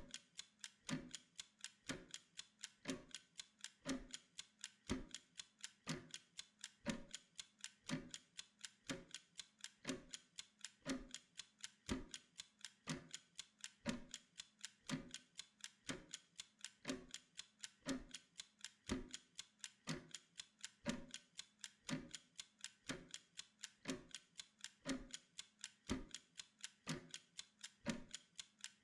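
Mechanical kitchen timer ticking in a steady, even rhythm of quick clicks, with a heavier tick about once a second.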